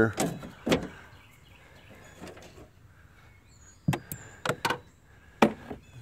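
Knocks and clicks of a Ford Focus rear hatch latch assembly being worked loose by hand against the hatch's inner panel. There are two near the start, then a cluster about four to five and a half seconds in.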